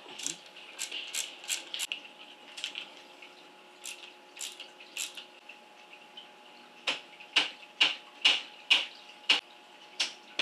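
A mallet striking an SR Suntour Epixon suspension fork: sharp knocks with a metallic ring, scattered at first, then a quicker run of louder blows, about two a second, in the last few seconds.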